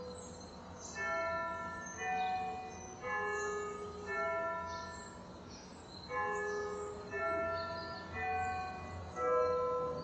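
Bells struck in a slow series, about one stroke a second with a short pause in the middle, each stroke at a different pitch and ringing on as it fades.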